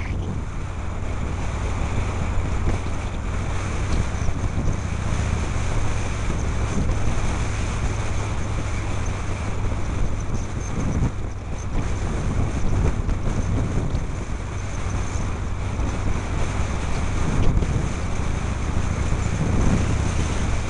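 Harley-Davidson Shovelhead V-twin engine running as the motorcycle rides along, heavily mixed with wind buffeting on the helmet-mounted microphone.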